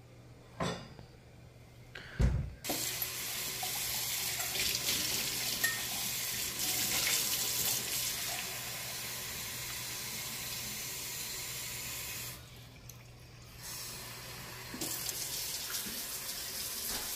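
Kitchen faucet running water into a glass measuring cup, a steady rush that stops for about a second some twelve seconds in and then runs again. Two sharp knocks come in the first couple of seconds, before the water starts.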